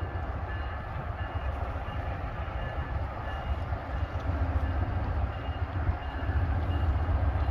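Train rumbling low and steady on the tracks, with a faint bell dinging at a steady rhythm.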